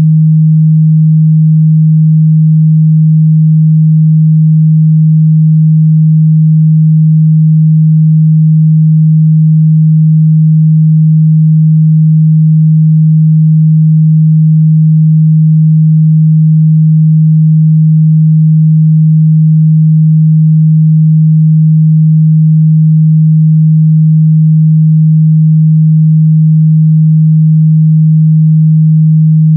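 A continuous 157 Hz sine-wave test tone, a steady low hum at one pitch and constant loudness, used to check a speaker's or headphones' mid-bass response.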